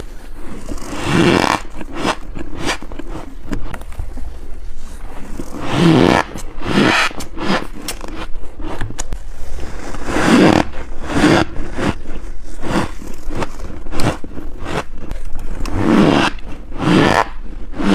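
Freezer frost bitten and crunched close to the microphone: four big crunching bites about every four to five seconds, with quick crackly chewing crunches in between.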